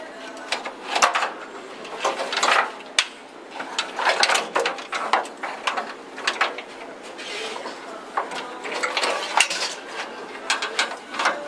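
Irregular clicks, knocks and short rattles of hands working taillight wiring connectors and plastic bulb sockets against the sheet-metal panels of a car's trunk.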